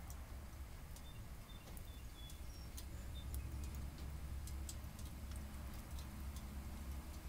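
Small wood-burning backpacking stoves burning kiln-dried wood fuel, crackling with irregular sharp pops and ticks over a steady low rumble.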